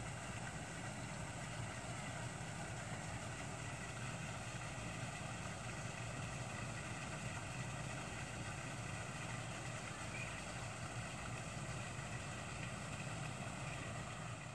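A steady, unchanging machine hum, engine-like, with a low drone and a few faint steady tones above it.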